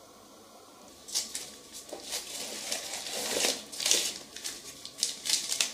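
Newspaper wrapping crinkling and rustling in irregular bursts as it is handled and pulled from a cardboard box, starting about a second in.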